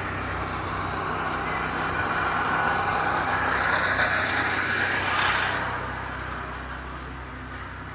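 Road traffic: a motor vehicle passing, its noise growing louder and then fading away over several seconds, over a steady low hum.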